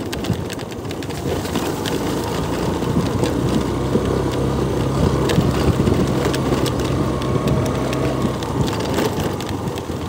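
A vehicle driving along a stony dirt track: a steady low engine hum under continuous crunching and rattling from tyres on loose gravel.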